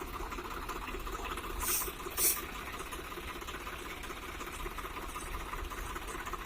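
Tractor diesel engine running with a fast, even clatter, with two short hissing bursts about two seconds in.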